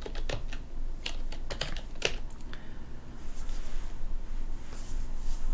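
Computer keyboard being typed on: a quick run of key clicks over the first two seconds or so, then only a few scattered keystrokes.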